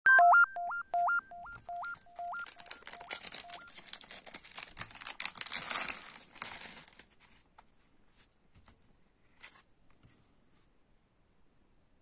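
A short electronic jingle of beeps hopping between two pitches and fading out over the first few seconds. Then cellophane shrink wrap on a CD jewel case crinkles and tears as it is pulled off for about five seconds. Near the end there are only faint light ticks from handling the plastic case.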